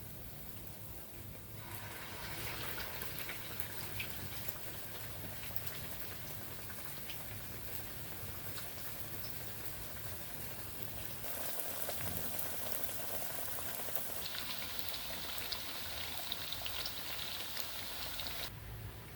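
Empanadas frying in hot oil, a steady sizzle with scattered crackles, starting about two seconds in and dropping away shortly before the end.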